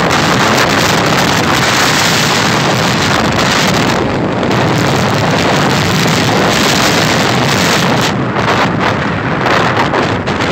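Heavy wind noise on the microphone of a moving vehicle, with engine and road noise running steadily underneath.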